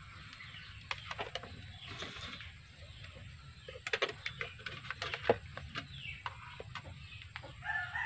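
Light clicks and taps of a digital multimeter and its test leads being handled on a workbench. A drawn-out bird call sounds in the background near the end.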